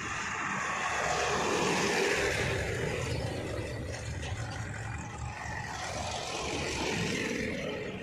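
Two diesel farm tractors hauling loaded trailers drive past one after the other, the second a red Mahindra. Their engines get louder as each comes close, about two seconds in and again around seven seconds.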